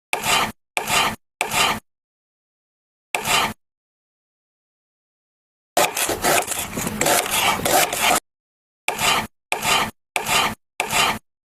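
Short edited snippets of items being handled and put into a fridge, rubbing and scraping sounds. There are nine separate bursts, each cut off abruptly into dead silence: three quick ones at the start, one alone, a longer stretch of about two seconds in the middle, then four evenly spaced ones near the end.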